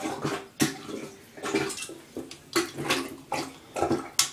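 A toilet plunger working in a clogged toilet bowl, water sloshing and splashing with each stroke, about two strokes a second.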